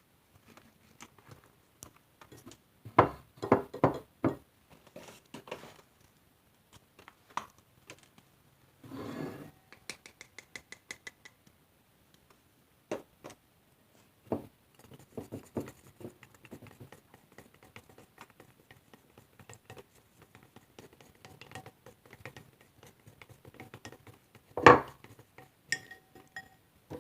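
Irregular knocks, clinks and scraping of containers and utensils being handled while slime ingredients are prepared. There is a quick run of loud knocks a few seconds in, a brief rustle, and one sharp knock near the end.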